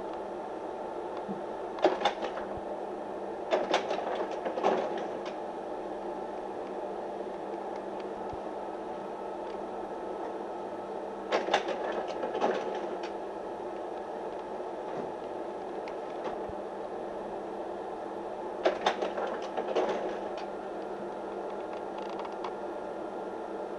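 A slide projector running with a steady fan hum, broken by short clusters of clicks and clacks from its slide-change mechanism: about 2 seconds in, around 4 seconds, around 12 seconds and around 19 seconds.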